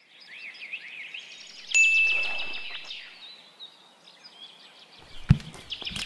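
Small birds chirping, a busy stream of short quick chirps. A clear ringing tone starts sharply about two seconds in, the loudest sound here, and fades over a second. A single low knock comes near the end.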